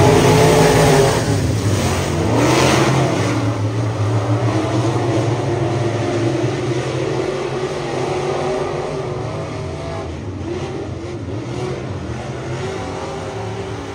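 Dirt modified race cars running laps on a dirt oval. One passes close in the first couple of seconds, loudest then, with a quick sweep in engine pitch. The pack's engines then carry on farther off, slowly growing quieter.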